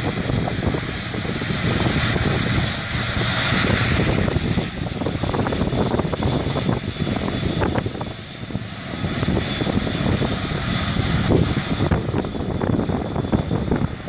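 Emirates Boeing 777 jet engines running as the airliner moves along the runway: a loud, steady jet rumble with a hissing whine that swells a few seconds in.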